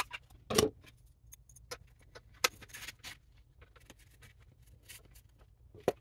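Scattered light clicks, taps and rustles of a Victorinox Venture Pro knife and its plastic sheath being handled and fitted into the nylon-and-plastic Venture Pro Kit holder, with sharper knocks about half a second and two and a half seconds in.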